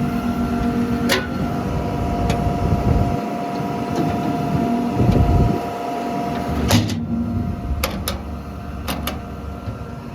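John Deere 210G LC excavator's diesel engine running steadily at idle, with several sharp clicks and knocks, the loudest about two-thirds of the way in, and a short low rumble around the middle.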